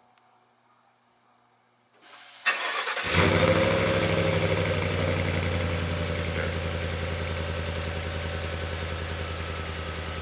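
2020 Chevrolet Silverado 1500's 5.3-litre V8, fitted with Chevrolet's factory performance cat-back exhaust, starting: about two seconds in, the starter cranks briefly, then the engine catches with a loud flare. It settles into a steady, deep idle that slowly eases down.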